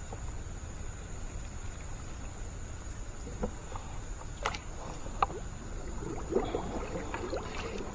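Water moving around a small wooden boat, with a few sharp knocks and clicks a few seconds in and a cluster of splashy, knocking sounds near the end.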